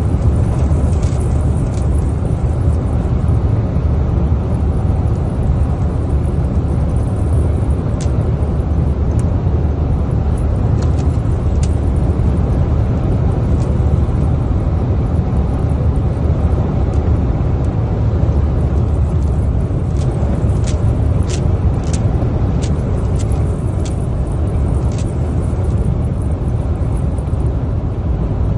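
Steady low rumble of a car driving at highway speed, heard from inside the cabin. A scatter of sharp ticks comes through, with a cluster of them in the second half.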